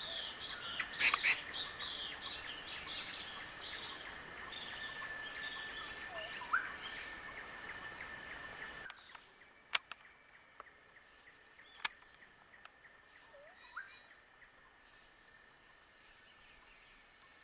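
Bird and insect ambience: a quick run of small chirping bird notes over two steady insect drones, with a few sharp clicks. About halfway through the sound cuts abruptly to much quieter ambience with only scattered clicks and a short rising call.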